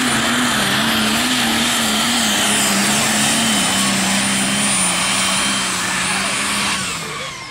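Multi-turbo super stock diesel pulling tractor running flat out under load on the sled, with a wavering engine note that slowly sinks and a high steady turbocharger whine on top. The engine drops off near the end.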